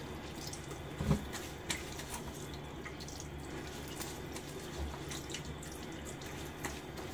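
Bathroom sink tap running steadily while rinsing after a shaving pass, with a few brief splashes.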